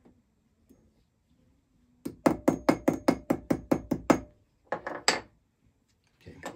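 Small jeweller's hammer tapping a metal ring seat on a steel bench stake, shaping it to close the two ends together for soldering. About two seconds in comes a quick run of about a dozen ringing taps, roughly six a second, then a few more taps.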